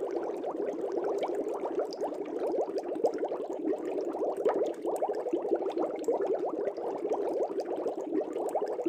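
Air bubbles bubbling steadily in water, a dense run of many small rising blips in quick succession.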